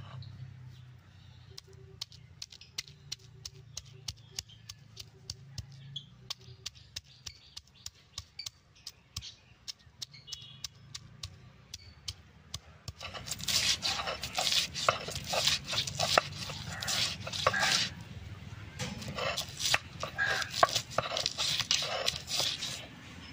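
Wooden crusher knocking down on garlic cloves and onion on a wooden board, a steady run of sharp taps about two or three a second. About 13 seconds in it becomes louder crunching and scraping as the garlic and onion are ground to a paste.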